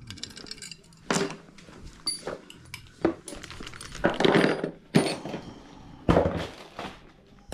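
Metal bike parts and tools knocking and clinking while a front fork and headset are being fitted: half a dozen separate thunks and clatters about a second apart, the longest clatter around the middle.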